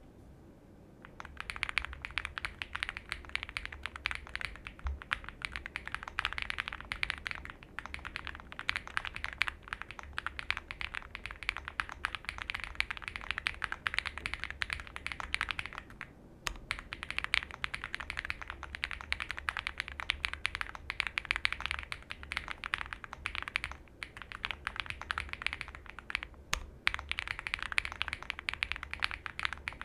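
Steady, fast typing on an Owlab Spring mechanical keyboard built with an FR4 plate, lubed and filmed Owlab Tungsten linear switches, Durock v2 stabilizers and CannonCaps Hydrangea keycaps. The typing starts about a second in and stops briefly a couple of times.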